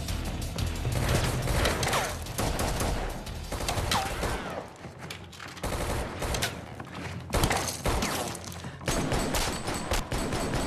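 Rapid movie gunfire: many sharp shots in quick bursts over a low music score. There is a short lull with the bass falling away about four and a half seconds in, and the loudest shot comes a little past seven seconds.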